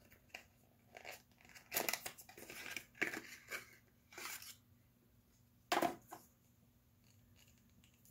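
Small cardboard mascara box being torn open and its packaging crinkled by hand: irregular rustling and tearing, busiest a couple of seconds in, with a sharp snap a little past halfway.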